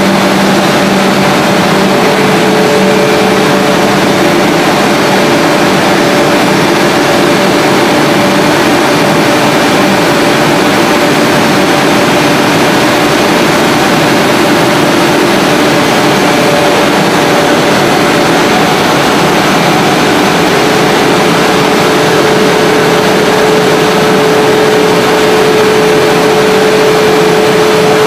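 Running HDPE pipe extrusion line: a loud, steady machinery din from its motors and pumps. A few held humming tones shift partway through.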